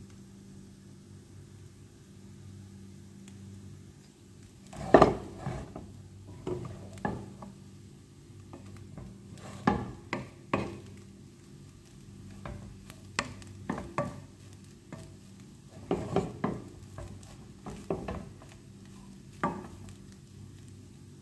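Wooden spatula stirring fried rice in a nonstick wok, scraping and knocking against the pan in irregular strokes that begin about five seconds in, the first the loudest. A low steady hum runs underneath.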